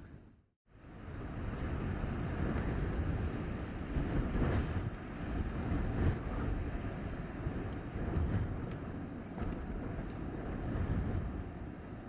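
Blizzard wind blowing in gusts: a low, rushing rumble with louder swells every second or two. The sound cuts out completely for about half a second near the start, then fades back in.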